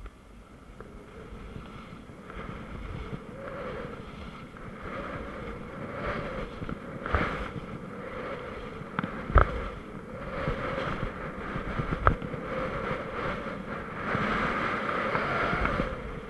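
Skis scraping and chattering over choppy, bumpy snow on a steep run, the scraping swelling and fading in waves with the turns and growing louder toward the end, with wind rushing across an action camera's microphone. A few sharp knocks come through, the loudest about nine seconds in.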